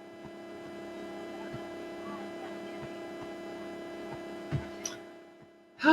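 A steady, even hum with two held tones, one low and one an octave above, and a faint soft thump about four and a half seconds in; the hum fades out near the end.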